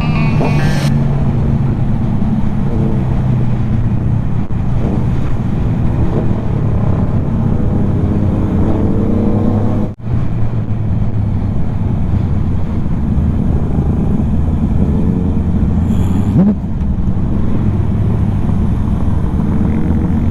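Motorcycle engine running steadily at road speed, heard from on board, with a brief dropout about halfway through.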